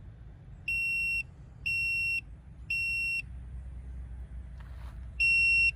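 Digital multimeter in continuity mode beeping out a Ford OBD1 trouble code: three high-pitched beeps about a second apart, a pause, then a single louder beep. Three then one is code 31, which the owner reads as an EGR valve fault.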